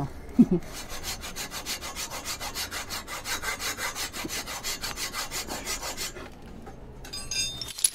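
Hacksaw cutting through a block of soft stone in quick, even back-and-forth strokes, about four or five a second, stopping about six seconds in.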